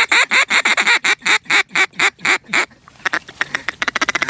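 Hand-blown waterfowl call worked hard at close range: a string of about a dozen loud, evenly spaced calling notes, about five a second, then quicker, softer chatter for the last second or so, calling to diving ducks coming in.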